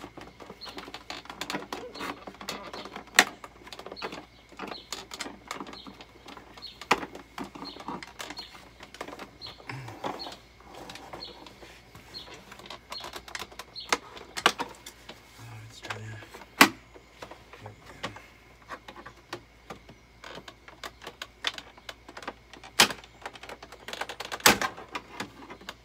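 Wooden wall boards knocking and cracking irregularly under the push of a shoe. Small clicks run throughout, and about six sharp, loud knocks stand out.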